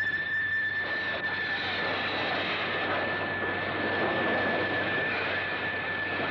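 Steam train making an emergency stop after its emergency brake is pulled: a steady high-pitched wheel-and-brake squeal over a loud rushing rumble, which swells about a second in.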